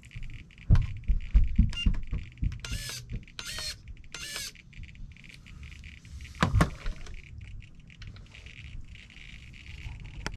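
Traxxas micro servo for the TRX4's locking differentials whirring in three short bursts as it shifts, now working after its servo saver was tightened. Handling clicks and knocks come before it, and there is one louder knock later.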